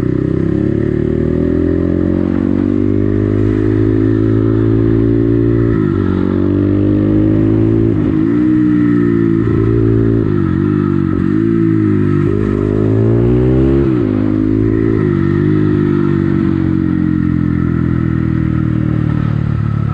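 Crossfire CX250R dirt bike's engine running under way, its note dropping and climbing again several times in the middle as the throttle is closed and opened, steady before and after.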